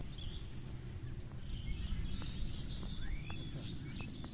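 Birds chirping and twittering, one call rising in pitch about two seconds in, over a steady low rumble, with a few faint clicks scattered through.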